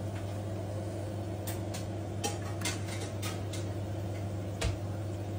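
A perforated metal skimmer clicking lightly against an aluminium cooking pot as pieces of mutton are lifted out of the broth. There are about eight clicks, starting about a second and a half in, over a steady low hum.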